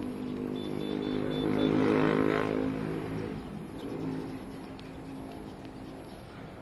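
A motor vehicle driving past, its engine growing louder to a peak about two seconds in and then fading away over the next second or two.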